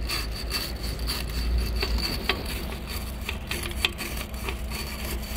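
Hand scraping and rubbing on the metal gasket face of a coolant pipe flange to clean it flat and smooth. It comes as irregular short scratches and taps over a steady low hum.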